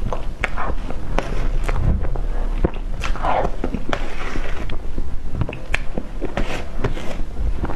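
Close-miked wet mouth sounds of eating soft whipped-cream cake: irregular smacking and chewing clicks, with a metal spoon scraping cream across the plate.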